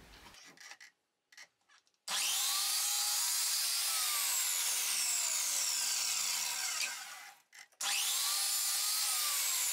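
Electric mitre saw running and cutting ash boards in two long, even runs: the first starts about two seconds in, and the second follows after a short break near the end. A few faint handling clicks come before the first cut.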